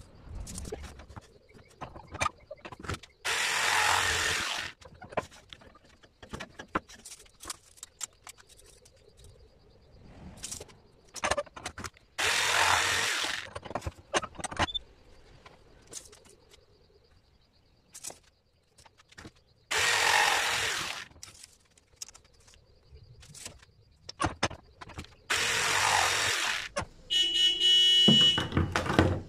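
Four short bursts of rushing noise, each about a second and a half long and spaced several seconds apart. Near the end a vehicle horn hoots for about two seconds.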